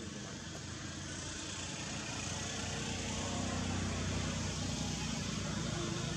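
Steady hum and hiss of a motor vehicle running, slowly growing louder.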